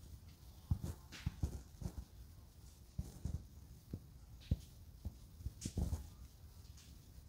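Irregular soft low thumps with a few sharper clicks, scattered across the few seconds with no steady rhythm.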